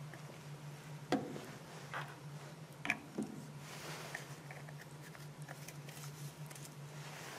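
Quiet room tone with a steady low hum and four soft taps in the first few seconds.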